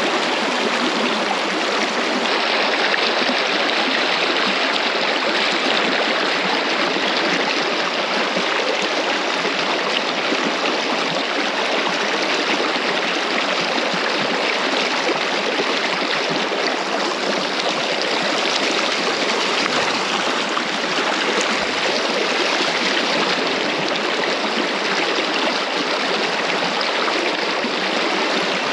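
River water rushing steadily over a shallow, stony riffle, a continuous even flow sound without a break.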